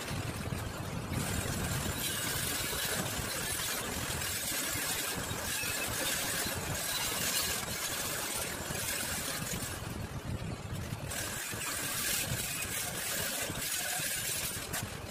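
Angle grinder grinding a stainless steel frame, giving a steady high whine with a grinding hiss. It stops briefly about ten seconds in and then starts again.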